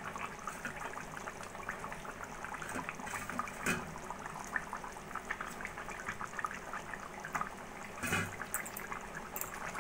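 Thin fish curry simmering in a kadai, bubbling with many small pops. Two soft splashes a few seconds apart as fried rui fish pieces are slipped into the gravy.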